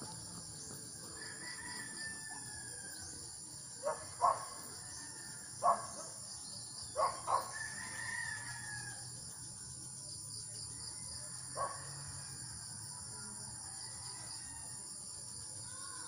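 Faint rural ambience: a rooster crowing and a few short bird calls, scattered through the first half and once more near the end, over a steady high-pitched drone of insects.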